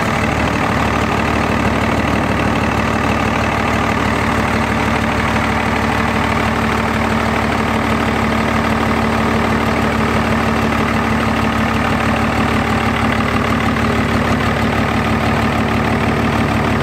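Third-generation Dodge Ram dually's Cummins inline-six turbo diesel idling steadily, with an even, rhythmic diesel clatter.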